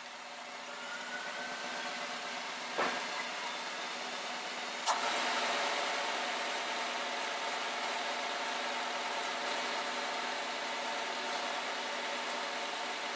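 Honda Accord's four-cylinder engine idling steadily just after being started, running with the new radiator in while the cooling system is checked for leaks and topped up. Two short clicks come about three and five seconds in.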